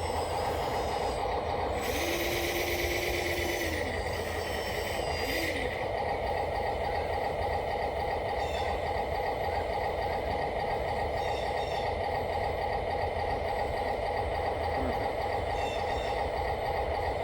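Electric drive motors and gearing of radio-controlled construction machines running with a steady mechanical hum. About two seconds in a motor whine rises, holds for a couple of seconds and falls away, with a scraping hiss alongside it and again briefly a second later.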